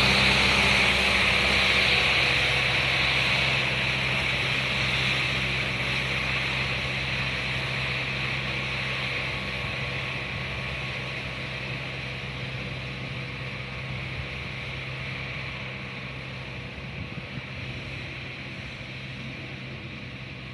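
Elgin Pelican mechanical street sweeper driving away while sweeping: a steady engine hum under the hiss of its brooms on the pavement, fading steadily as it moves off.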